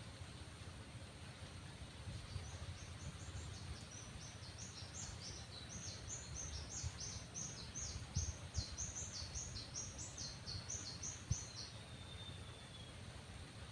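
A bird singing a long run of quick, high chirps, about two or three a second, ending in a short falling note. Under it is a steady low rumble with a few sharp knocks.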